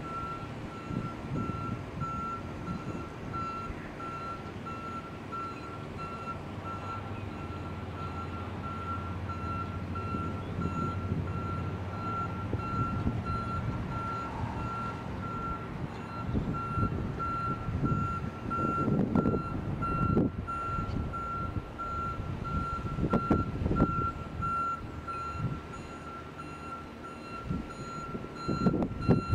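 Back-up alarm beeping in an even, steady rhythm as a flatbed pickup truck reverses with a loaded twin-axle trailer hitched, over the low running of the truck's engine. A few louder low rumbles come in the second half.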